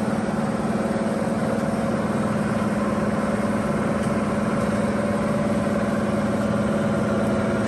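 The lathe's tray coolant pump motor running with a steady hum, just switched on and not yet delivering coolant.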